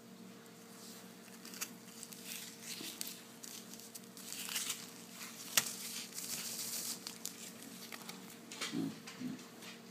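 Small plastic baggie of loose glitter crinkling and rustling as it is handled, in irregular bursts that thicken in the middle, with one sharp click about five and a half seconds in.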